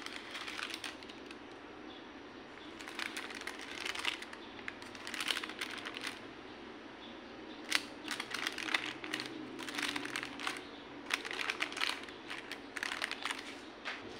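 Baking parchment crinkling and rustling in irregular bursts as a loaf cake is lifted out of its tin by the paper lining. The crinkling is busiest in the second half.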